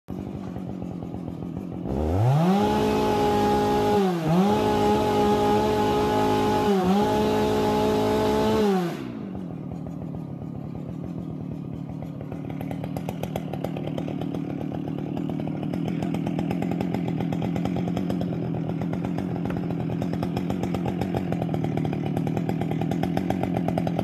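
Chainsaw revved to full throttle, holding a high even pitch for about seven seconds with two brief dips, then dropping back to a steady idle that grows slowly louder toward the end.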